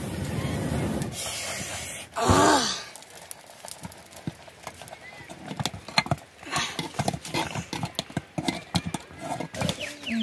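A person blowing hard into a wood fire with a rushing breath for about two seconds. Then comes a short, loud wavering call like a whinny, followed by a run of clicks and taps from a metal ladle stirring and knocking in a metal pot over the fire.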